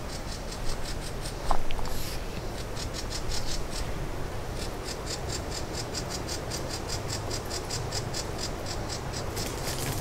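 Insects calling in a fast, even, high-pitched pulse of about five beats a second, growing stronger from about three seconds in, with one short chirp about one and a half seconds in.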